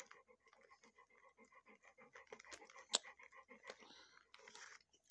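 A large dog panting softly with quick, even breaths, and one sharp click about three seconds in.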